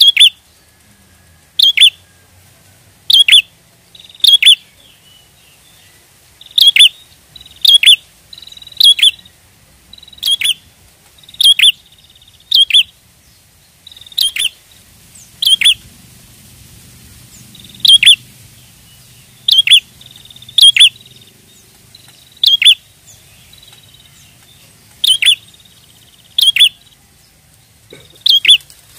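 Prinia (prenjak) calling: loud, short, sharp chirps repeated about every second or so, some coming close together in pairs.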